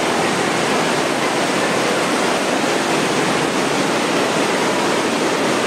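Fast-flowing floodwater rushing and churning, a loud steady rush of water.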